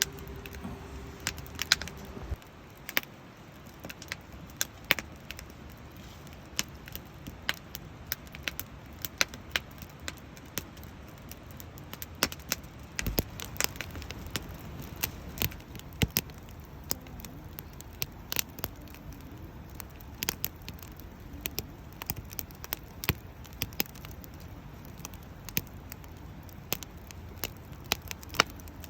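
Firewood burning in a camp fire pit, crackling with frequent irregular sharp pops and snaps over a low steady background.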